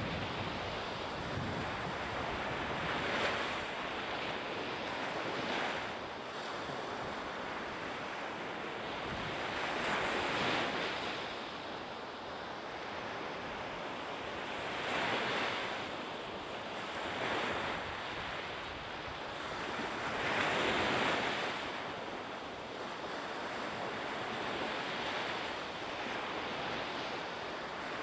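Sea waves washing, a steady surf noise that rises and falls in washes every few seconds, with wind blowing across the microphone.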